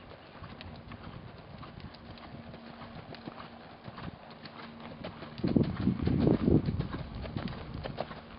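Horse's hooves striking the ground in a run of clip-clop beats, with a louder burst of low rumbling noise for about a second and a half past the middle.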